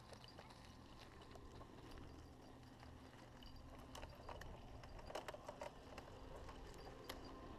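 Faint rolling noise of a Haro hardtail mountain bike moving slowly over a dirt trail, with scattered light clicks and taps from the tyres and bike, more of them about four to five seconds in.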